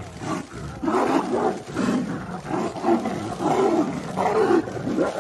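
Tigers roaring as they fight, a string of loud calls coming about once a second.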